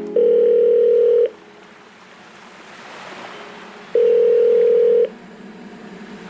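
Telephone ringback tone: two long, steady beeps about three seconds apart, with a faint hiss between them.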